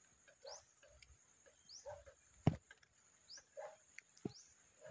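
Faint short high chirps about once a second, with lower squeaky calls between them, over a steady faint high-pitched hum. One sharp click comes about two and a half seconds in.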